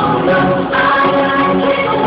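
Loud dance music with a singing voice, played over a club sound system.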